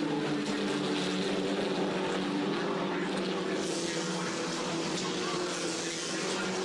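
Several SEAT Leon touring cars' engines running at high, steady revs as the pack drives past.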